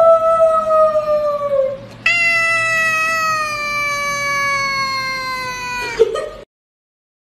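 Tabby cat giving long, drawn-out meows that slowly fall in pitch. One is ending about two seconds in, and a second starts right after it and is held for about four seconds.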